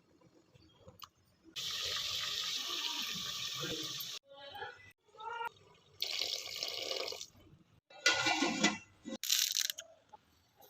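Tap water running in a kitchen sink, in several separate bursts of a few seconds each that start and stop abruptly.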